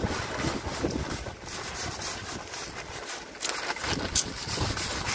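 Wind buffeting the microphone in a snowstorm, a steady rumbling hiss, while a plastic bag of snow-melting salt is shaken out onto snowy steps, with a couple of sharp crinkles about three and four seconds in.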